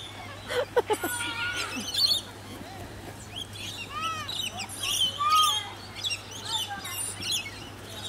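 Birds chirping and calling: many short, arched chirps overlapping one another.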